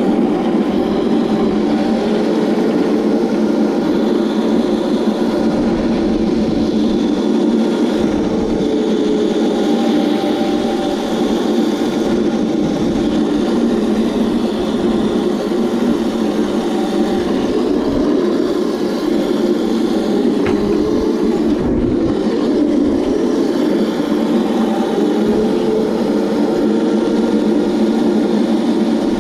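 Razor Crazy Cart electric drift kart driving, its motor whine slowly rising and falling in pitch with speed over a steady, loud, noisy rumble.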